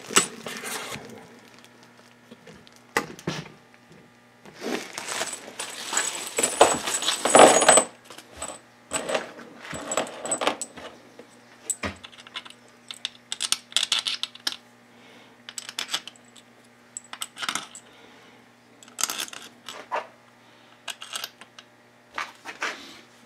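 Loose steel engine-case bolts clinking and jingling together as they are rummaged through and picked out of a bag, in irregular clusters of sharp metallic clicks, some ringing briefly.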